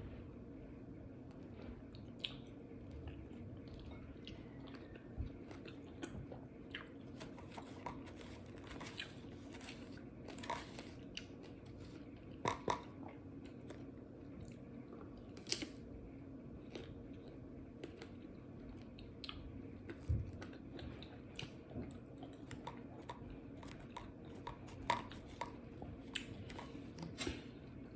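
A person biting into and chewing mango with fried chilies: scattered short crunches and mouth sounds over a steady low hum.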